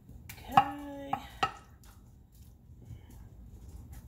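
Wooden spoon knocking against a saucepan and a ceramic baking dish as meat sauce is scooped and spread. Three sharp knocks come in the first second and a half, with a short, steady squeaky scrape between the first two.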